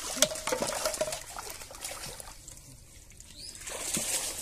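Water splashing in a shallow pond as a fish is grabbed by hand at the surface, with irregular splashes and slaps, stronger in the first second and again near the end.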